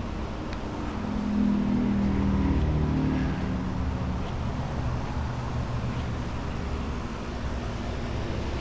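A motor vehicle's engine passing by, swelling about a second in and fading away a couple of seconds later, over a steady low hum.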